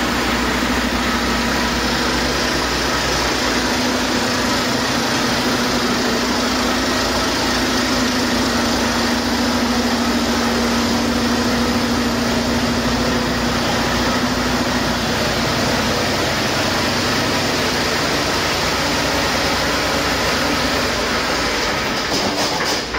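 Used Volvo D13M inline-six truck diesel engine running steadily on a test stand, a good engine running well on its test run.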